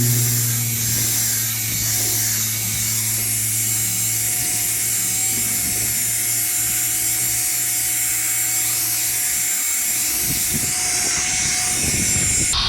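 Electric drill spinning a foam polishing pad against a plastic headlight lens, a steady whir with a rubbing hiss as the faded lens is buffed.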